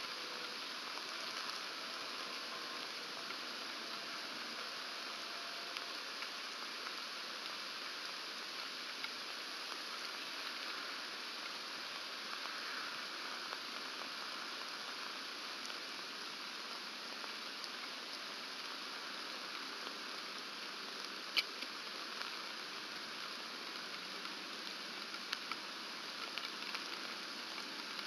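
Steady rain falling on a pine forest, an even hiss, with a single sharp click about three-quarters of the way through.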